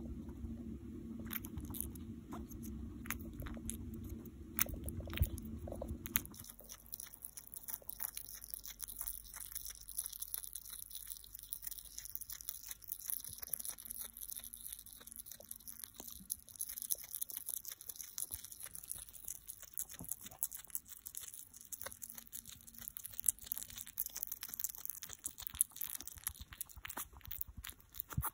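Hedgehog chewing a boiled quail egg close to the microphone: many quick wet clicks of its mouth and jaws. A low hum underneath cuts off about six seconds in.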